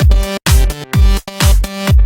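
Electronic dance music with a deep kick drum about twice a second under steady synth chords.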